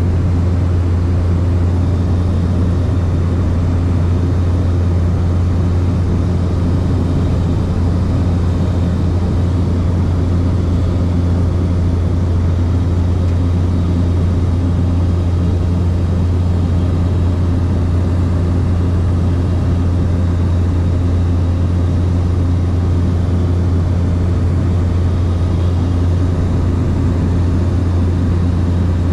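Light aircraft's engine and propeller droning in cruise flight, heard from inside the cabin: a loud, constant low hum that does not change.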